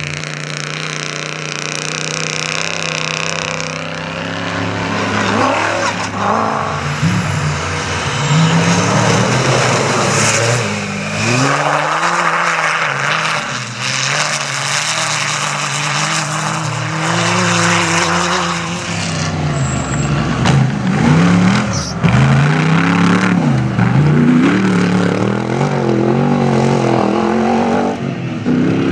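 Off-road rally cars' engines running hard on a dirt stage, the pitch repeatedly climbing and dropping with throttle and gear changes.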